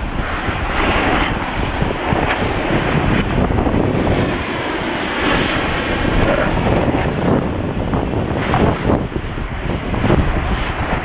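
Wind buffeting the camera microphone during a downhill snowboard run, mixed with the steady hiss and scrape of a snowboard sliding over packed snow.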